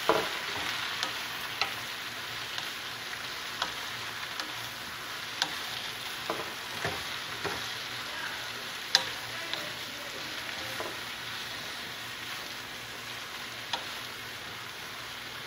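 Sliced bottle gourd sizzling as it is stir-fried in hot oil, with a wooden spatula now and then knocking and scraping against the pan.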